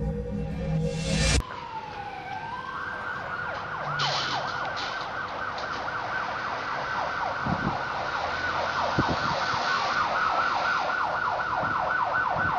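Music cuts off about a second and a half in, and an electronic emergency-vehicle siren takes over. It starts as a slow wail and switches to a fast yelp of rapid rising and falling sweeps.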